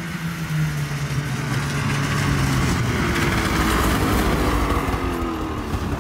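Polaris 650 two-stroke snowmobile engine running, its pitch easing down over the first couple of seconds and then holding steady under a rushing noise.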